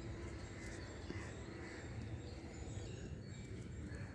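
Quiet outdoor ambience: faint, scattered bird calls over a low, steady rumble.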